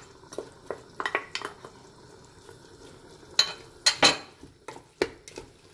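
Cooking utensils clinking and knocking against a pot in a string of irregular knocks, the loudest pair about four seconds in.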